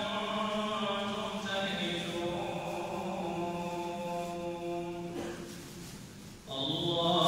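An imam chanting the Quran in long, drawn-out melodic phrases during tarawih prayer. About five seconds in his voice fades into a short pause, then resumes louder near the end.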